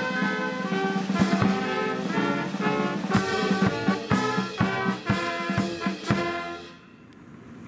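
Military brass band playing, brass over snare and bass drum; the music fades out near the end, leaving a faint steady outdoor hiss.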